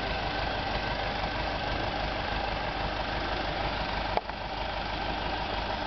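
Farm tractor engine idling steadily, with a single short click about four seconds in.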